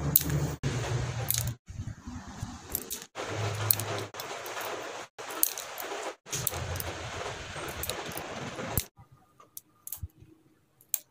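Steel nail clipper snipping the heads off wooden matchsticks: a run of sharp clicks, with the clipped match heads clinking as they drop into a plastic bowl. A steady hiss and low hum underlie the first eight seconds or so and then cut off, leaving only the separate clicks.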